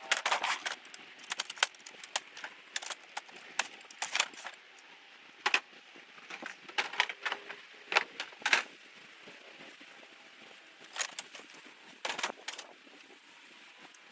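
Irregular clatter of small hard objects being handled and put away, sharp clicks and rattles coming every second or so, with a busier run near the start and another around two-thirds of the way in.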